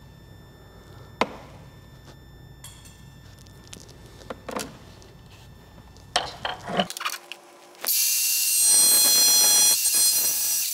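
A few light clicks and knocks, then about eight seconds in a DeWalt cordless angle grinder with a cutoff wheel starts cutting the car's sheet-metal firewall: a loud, steady cutting noise with a high whine over it.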